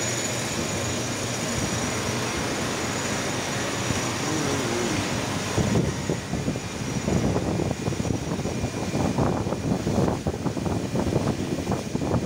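Steady machine noise from a running CNC lathe cell with its coolant spraying, with a faint high whine. From about halfway through it becomes louder and more irregular and crackly.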